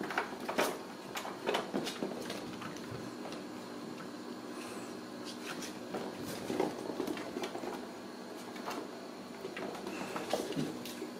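Ragdoll kittens scampering and playing: irregular light clicks, taps and knocks of paws and claws on tile floor, cardboard scratchers and plastic toys, over a faint steady hum.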